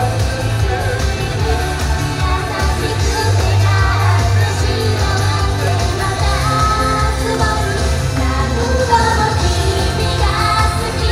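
Live J-pop idol song: young women singing into handheld microphones over backing music with a strong, steady bass line.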